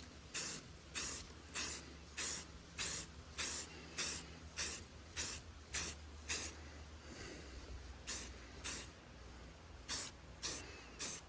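Spray paint hissing out in short, repeated bursts, about one and a half a second, then a pause and a few more bursts near the end. These are light dusting passes of a first coat onto a rifle.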